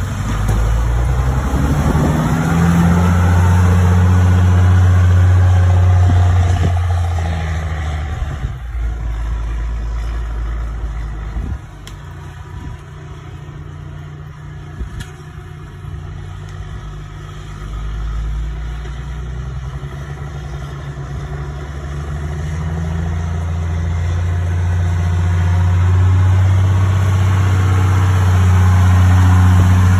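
First-generation Dodge Ram's 5.9 L Cummins inline-six turbo diesel running while the truck plows snow. It is loud at first, drops off sharply about a third of the way in as the truck moves away, and grows louder again toward the end as the truck comes back.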